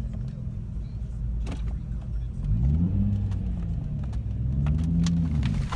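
Nissan 350Z's V6 engine heard from inside the cabin, pulling under load up a hill: a steady low note, then two revs about two seconds apart, each climbing in pitch and falling back.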